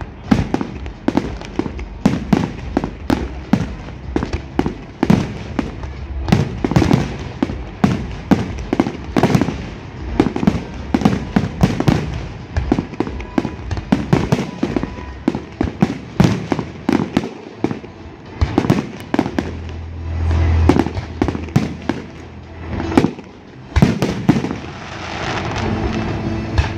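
Aerial fireworks shells exploding in rapid succession: a dense run of sharp bangs and crackles with deeper booms among them. The bursts thin out near the end.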